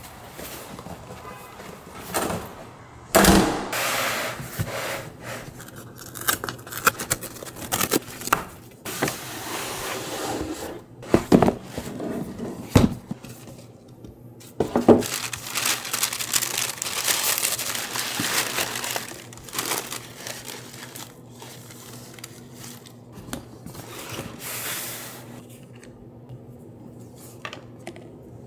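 Cardboard boxes being handled and opened: several sharp knocks and scrapes of cardboard, with bursts of tearing and crinkling as tissue paper is pulled back from a pair of sneakers.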